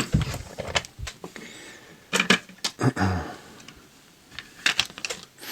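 Handling noise: a few scattered clicks and knocks of small hard objects, such as a lock and tools, being picked up and set down, with quiet gaps between.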